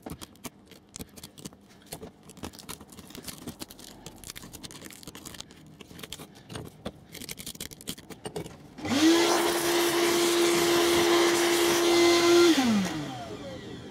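Fingers pick and scrape at loose model-railway ballast grit, a scatter of faint small clicks. About nine seconds in, a small vacuum cleaner switches on; its motor whine rises to a steady pitch, runs for about three and a half seconds clearing up the loose grit, then winds down.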